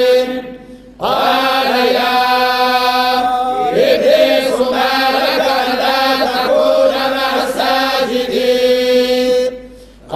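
Men reciting the Quran in unison in the Moroccan collective hizb style (tahazzabet), chanting one long melodic phrase on held notes. The voices stop briefly for breath about a second in and again near the end.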